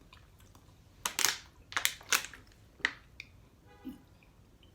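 Short, sharp mouth sounds from someone eating very spicy instant noodles, about six of them in two seconds, then a faint brief whimper-like sound.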